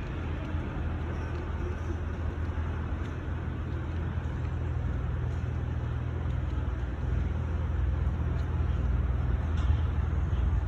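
A heavy vehicle's engine running steadily, a low rumble that grows a little louder in the second half, with a few faint light knocks.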